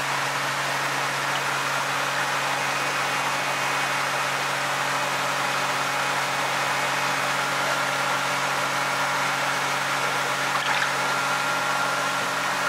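Steady, unchanging hum and hiss of running machinery, with faint sloshing of water as a koi is held by hand in a tub.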